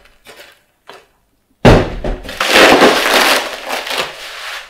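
A sudden thump about one and a half seconds in, then about three seconds of loud rustling and scraping packaging: a bubble-wrapped umbrella being slid out of its cardboard and paper wrapping.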